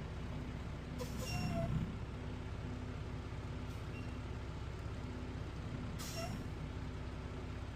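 Concrete mixer truck running steadily, with two short air hisses, about a second in and again near six seconds.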